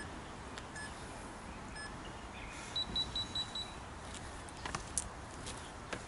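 Two short electronic beeps a second apart, then a quick run of five high pips, over a steady outdoor hiss. A few light clicks of steps on the paving follow near the end.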